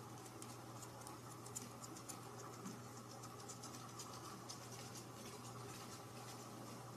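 Faint, irregular light scratching and tapping as a kitten bats and paws at a pom-pom wand toy, over a steady low hum.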